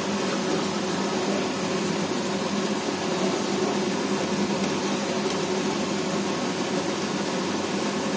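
A steady hum and hiss, like a running kitchen fan, over masala sizzling in a kadhai as paneer and capsicum are stirred through it.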